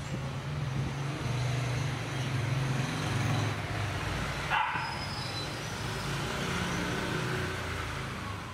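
Steady low engine drone of nearby motor traffic, with a brief sharp call about four and a half seconds in; the sound fades out near the end.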